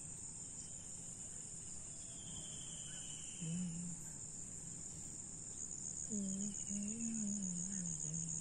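Crickets chirping in a continuous high trill that turns to a rapid pulse about six seconds in. A voice hums a slow, wavering tune quietly underneath, briefly around the middle and again near the end.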